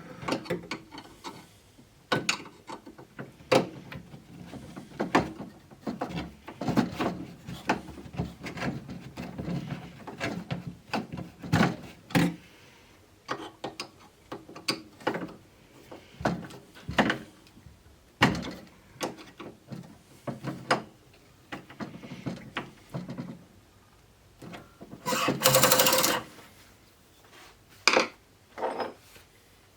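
Scattered clicks, taps and knocks of parts and hand tools being handled on a wooden pinball playfield during reassembly, with one louder noisy burst about a second long near the end.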